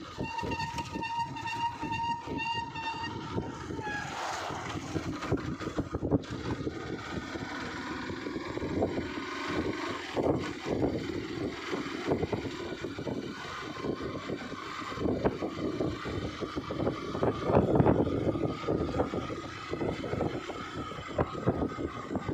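Road and wind noise from a vehicle travelling along a street, with a steady high horn-like tone held for about the first three and a half seconds.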